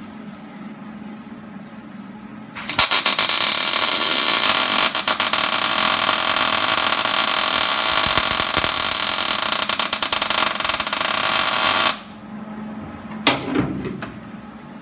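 Welding arc crackling steadily as a bead is laid on the sheet-steel floor cross members, for about nine seconds before it stops abruptly. A few light metal knocks follow.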